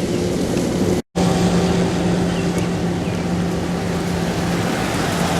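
Steady motor hum, like an idling engine, under a loud hiss of wind and outdoor noise, broken by a brief cut to silence about a second in.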